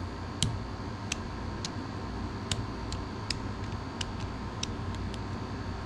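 Light, sharp metal clicks at uneven intervals, about one or two a second, as small machined metal parts are handled and fitted together, over a steady low hum.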